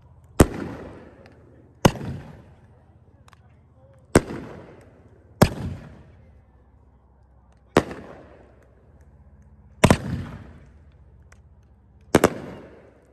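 500-gram 9-shot consumer fireworks cake (Epic Fireworks Ghost Revolution) firing its aerial shots. There are about seven sharp bangs, one every one to two and a half seconds, each trailing off over about a second, with two in quick succession near the end.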